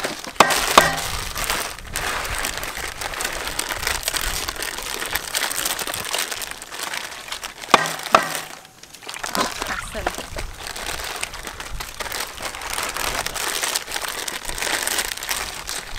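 Plastic instant-noodle packets crinkling and tearing as they are opened and the noodle blocks pulled out, with a few sharp knocks of a cleaver chopping meat on a wooden block.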